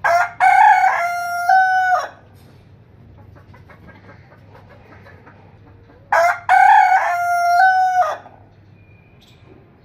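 A rooster crowing twice, each crow about two seconds long and some six seconds apart: a short opening note, then long held notes that step up in pitch before a falling end.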